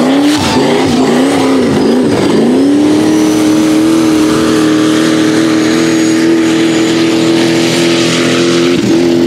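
Rock bouncer buggy's engine revving hard in quick up-and-down bursts, then held at a steady high pitch for several seconds, dipping briefly near the end.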